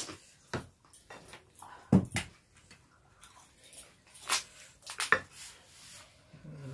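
Fuchka (pani puri) eating sounds: scattered short, crisp cracks and clicks as the hollow fried shells are broken open and handled. A louder thump comes about two seconds in.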